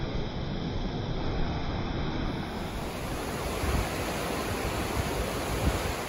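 River water rushing steadily through whitewater rapids, with gusts of wind buffeting the microphone.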